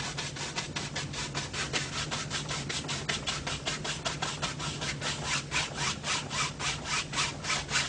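A 2-inch brush loaded with oil paint scrubbed back and forth in quick criss-cross strokes on a primed canvas: a rhythmic rasping at about six strokes a second as the sky colour is blended in.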